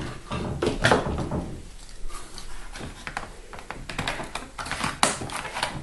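Plastic toy blaster parts and packaging being handled: scattered clicks, taps and rustles, with one sharper click about five seconds in.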